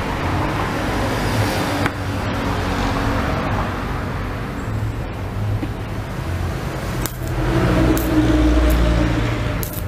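Stick-welding arc from a 160-amp inverter welder, a steady crackling hiss as the electrode burns during a test weld.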